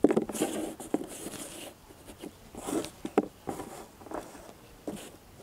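Cardboard shape cutouts being picked up, slid and set down on a table by hand: rustling scrapes with several sharp light taps spread through it.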